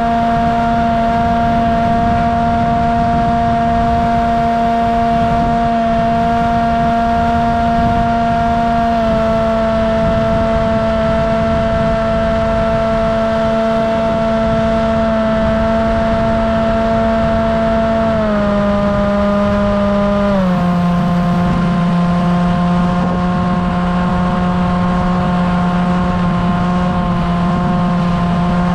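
Bixler RC plane's electric motor and propeller running with a steady whine over wind rush, heard from on board. The pitch steps down a little about a third of the way in, then twice more close together a little past two-thirds in, as the throttle is eased back.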